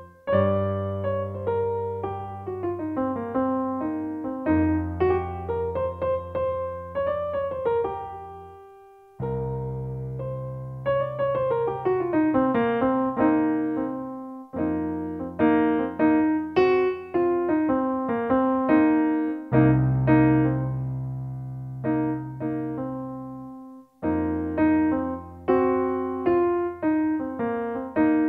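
Background solo piano music: a melody of quick notes over low bass notes that change about every five seconds.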